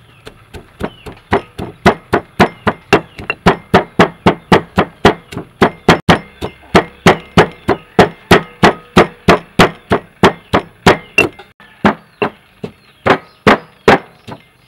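Stone pestle pounding garlic cloves, peppercorns and herb stems in a granite mortar: steady, sharp strikes about three a second, growing louder after the first couple of seconds, with a short break about twelve seconds in.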